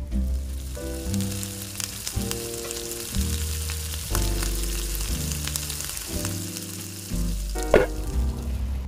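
Butter and oil sizzling steadily in a nonstick frying pan as stuffed mushroom caps fry, with background music playing underneath.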